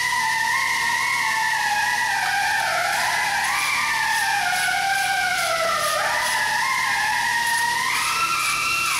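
A slow, gliding high-pitched melody, like a synth or theremin line, wandering up and down in steps.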